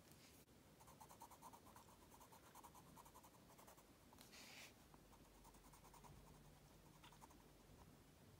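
Faint scratching of a colored pencil on an index card in quick, short strokes, with a brief louder scratch about four and a half seconds in.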